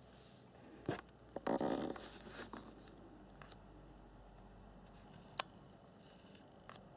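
Close handling noises: a knock about a second in, then a second or so of rustling and scraping, and a single sharp click past the five-second mark.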